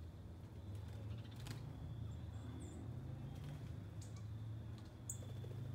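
Garden ambience: a low steady hum, a couple of faint clicks, and a few short high bird chirps near the end.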